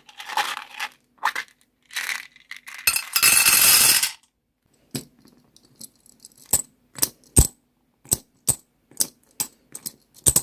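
Crunching, rustling bursts for the first four seconds, ending in a longer burst. Then about ten separate sharp, bright clicks of small hard beads dropping onto a hard surface, roughly every half second.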